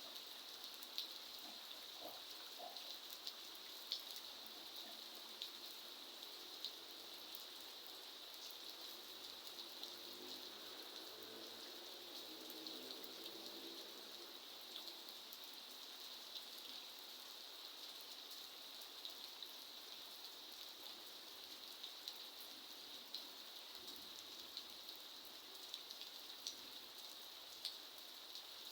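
Steady rain falling, a constant hiss with many scattered drops ticking sharply on a hard surface, a few louder than the rest.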